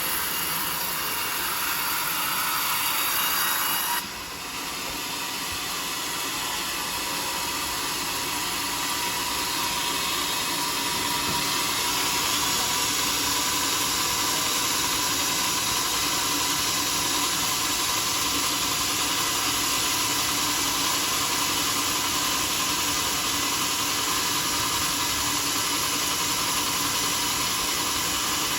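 Homemade sawmill saw running steadily through a teak log, a continuous hissing cut. It dips sharply about four seconds in and then builds back up to a steady cut.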